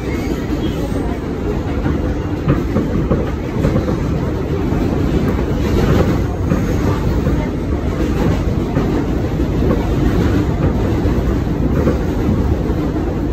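A New York City subway car running along the track, heard from inside the car: a loud, steady low rumble of wheels and running gear, with a few sharper knocks from the rails.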